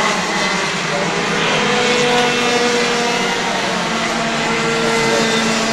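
Racing kart engines running on track, a loud, steady buzz with the engine notes shifting slightly in pitch.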